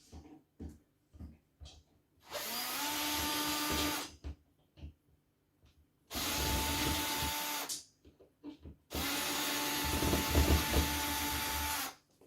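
Power drill running in three bursts of about two to three seconds each, each spinning up quickly to a steady whine, as it backs a screw out of a ceiling-mounted metal pot rack. A few light knocks fall between the bursts.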